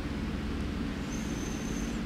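French bulldog snoring in its sleep: a steady low rumbling snore, with a thin high whistle joining for most of the second half.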